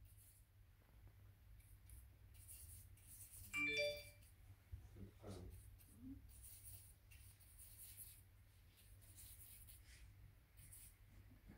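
Near silence: quiet room tone with a steady low hum. A single brief pitched sound comes about three and a half seconds in.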